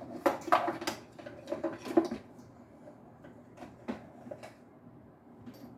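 Clicks and light knocks of an old sewing machine's parts being handled, a quick flurry for about two seconds that thins out to a few scattered taps.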